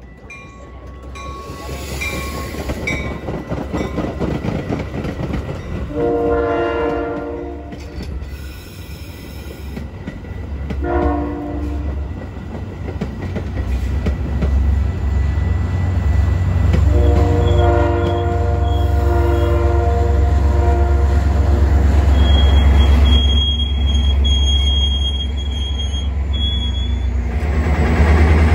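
Metra commuter train passing close by, sounding its horn in three blasts, the last the longest. The rumble of the bi-level cars and the diesel locomotive grows louder, and a high steady wheel squeal comes in near the end.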